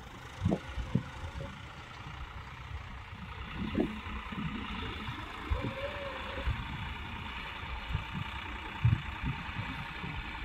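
John Deere 5405 tractor's three-cylinder diesel engine running steadily under load as it pulls a single-tine subsoiler through hard soil. The engine grows a little louder about a third of the way in, and there are several short low thumps.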